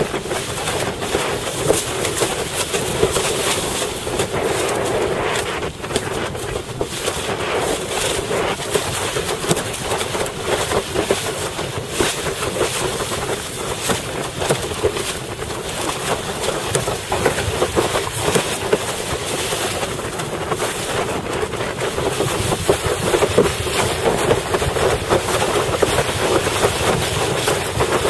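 Wind rushing over a helmet camera's microphone while a windsurf board planes across choppy water, a loud, steady noise with a constant patter of small slaps from the hull on the chop.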